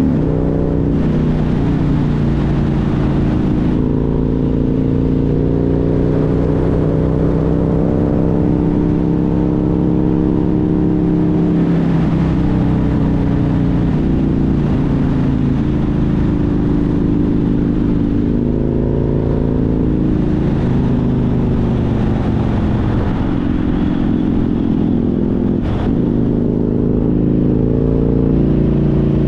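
Engine of a vehicle driving a winding road, its pitch rising and falling every few seconds with throttle and gear changes, over steady road and wind noise. A single sharp click sounds a few seconds before the end.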